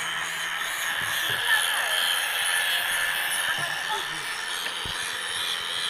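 Steady outdoor background hiss with faint, indistinct voices in the distance.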